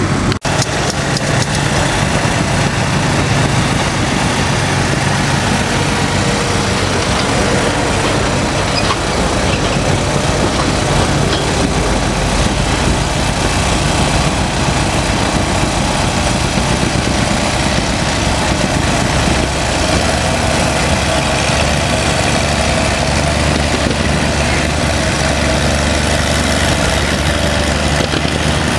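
Antique John Deere tractor engine running hard under load as it pulls the weight-transfer sled, a steady loud engine sound whose low note shifts a couple of times.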